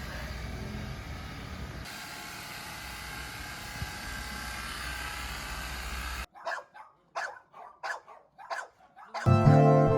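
Steady background noise, then a dog barking in a quick run of about seven short barks, with music starting in near the end.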